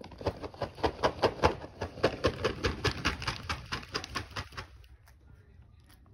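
A bag of dog treats being shaken in quick, even strokes, several a second, which stop about four and a half seconds in.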